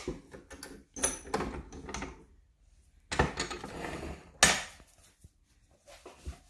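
Wooden and metal pieces knocking and clattering as a freshly waxed padauk workpiece is taken off and handled, in two spells of rattling with one sharp knock about four and a half seconds in.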